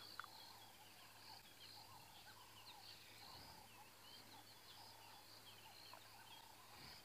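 Faint, continuous chatter of many small overlapping chirps and twitters from animals in the bush, over a faint low steady hum.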